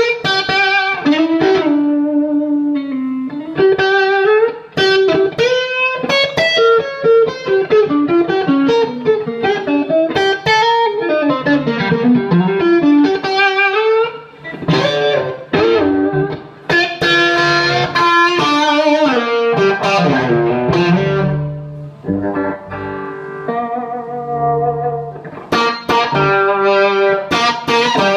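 Electric guitar played through a Bad Cat Siamese Drive pedal into a 3rd Power amp: a melodic lead of quick single-note runs and longer held notes, with brief pauses between phrases.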